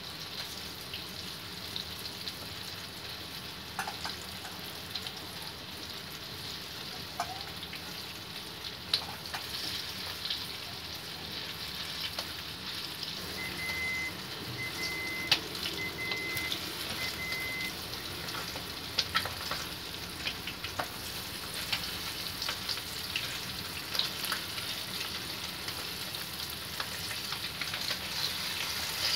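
Breaded chicken pieces frying in hot oil in a wok: a steady sizzle with scattered crackles and pops.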